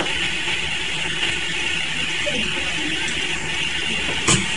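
Steady hum and hiss of a selective-soldering machine running, with one sharp click just past four seconds in as the metal tongs are handled.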